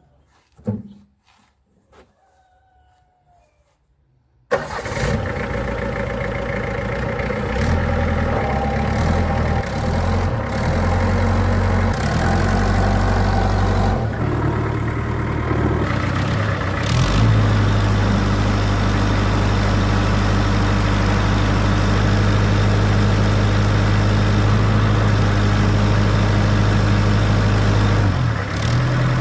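A few faint clicks and a thump, then an old truck's engine starts abruptly about four and a half seconds in and runs. Its speed changes a few times before it settles into a steady, higher run, with a brief dip near the end.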